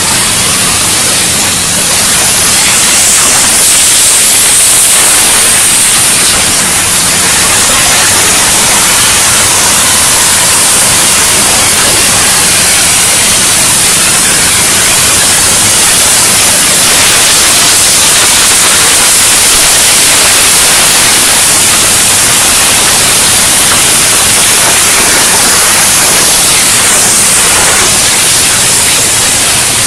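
CNC gantry cutting torch cutting through thick steel plate: a loud, steady hiss of the cutting jet.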